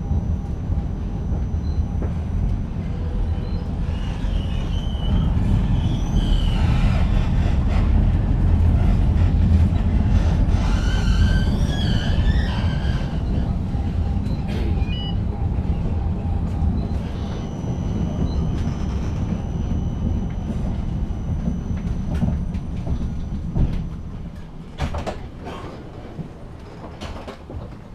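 Inside a tram running along a street: a steady low rumble of wheels and traction motors, with wheels squealing on the rails twice, a few seconds in and again about ten seconds in. Near the end it slows and grows quieter as it comes to a stop, with a few sharp clicks.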